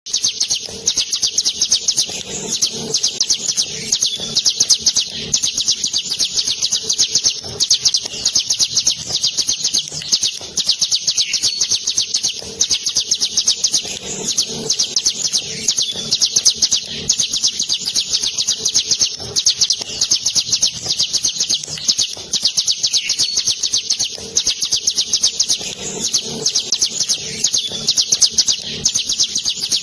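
Caged ciblek gunung, a prinia kept as a songbird, singing a long, unbroken rolling trill of very fast, high-pitched notes.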